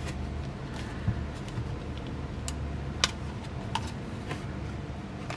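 Handling noise from a rubber grip bumper and a plastic portable hard-drive case: scattered light clicks and taps, the sharpest about three seconds in, over a steady low hum.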